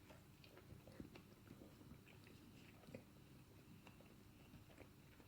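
Near silence with faint mouth sounds of a man chewing a mouthful of burger: soft, irregular clicks and smacks, a slightly louder one about a second in and another about three seconds in.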